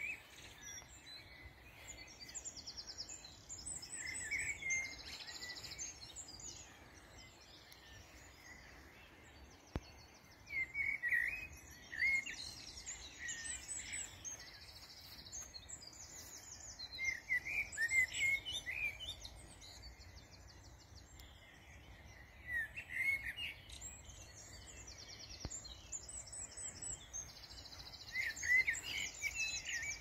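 Songbirds singing: a clear whistled phrase comes every few seconds, with higher, thinner twittering and trills between, over faint low background noise.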